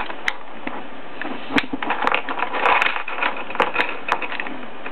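Skeleton key turning in an old Sargent & Co. one-lever mortise lock, working the bolt: a run of sharp metallic clicks with some scraping of the key and lever in between.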